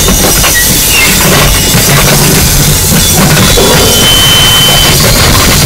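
Power electronics / harsh noise music: a loud, dense wall of distorted noise with a heavy low rumble beneath, and a thin high steady whine about halfway through.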